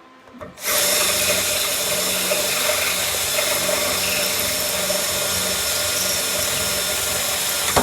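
Power drill boring out a broken 5/16-inch bolt from a steel part, making the hole ready for tapping new threads. It starts about half a second in, runs steadily with a constant whine, and stops abruptly at the end.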